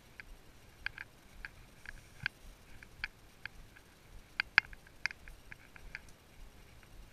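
A ridden horse walking over dry fallen leaves: light, irregular clicks and crackles, about one to three a second, with the loudest a little past halfway.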